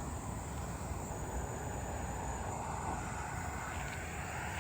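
A steady low rumble of outdoor noise, with crickets trilling in a thin, high, unbroken band over it.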